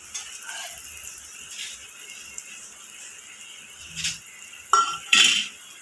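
Bread-and-egg pieces frying gently in a small metal pan over a low flame, with a faint steady sizzle. A steel slotted spoon knocks against the pan about four seconds in, then clinks and scrapes loudly twice near the end as the pieces are turned.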